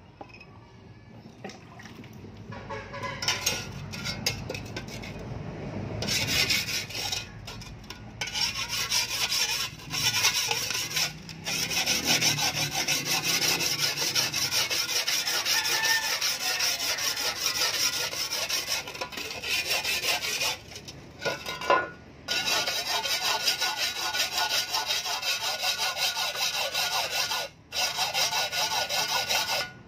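Steel shovel blade being sharpened by hand, a sharpening tool scraped in quick back-and-forth strokes along its edge. The scraping builds up over the first few seconds and then runs on, with a few short pauses.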